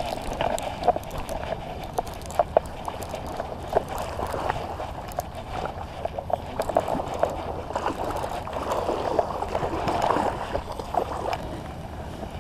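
A baitcasting reel being cranked and the rod handled while a hooked largemouth bass is reeled in and splashes at the bank, giving many irregular clicks and knocks over a rustling hash that swells near the end.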